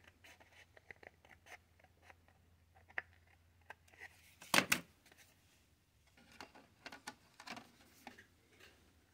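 Scissors snipping thin white plastic sheet in a series of small sharp snips and clicks, with a louder knock about halfway through and then rustling and clicking as the plastic piece is handled.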